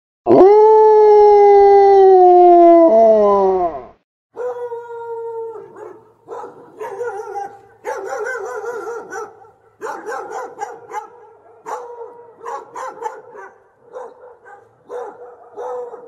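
A pit bull-type dog howls: one long, loud howl of about three and a half seconds whose pitch sags and drops off at the end. After a short break come shorter, quieter howls with a wavering pitch, broken up and mixed with barks.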